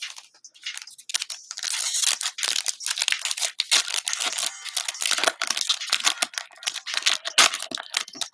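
Foil wrapper of a Panini Prizm basketball card pack being torn open and crinkled by hand, a dense run of crackling and tearing that starts about a second in.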